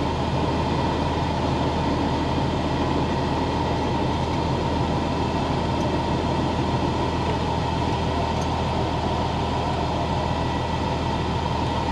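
Diesel engine of a Freightliner FLD 112 semi tractor running steadily at low speed as the truck creeps forward, heard from inside the cab as an even drone.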